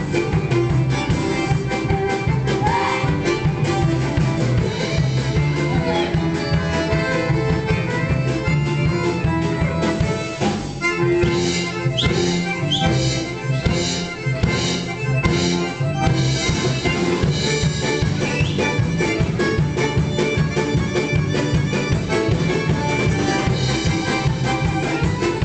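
Small live folk band playing a lively dance tune, a fiddle carrying the melody over accompanying instruments with a steady beat.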